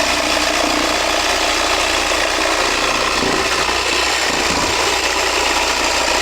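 Electric jigsaw running steadily at a constant speed, its reciprocating blade cutting into a wooden board on an angled cut.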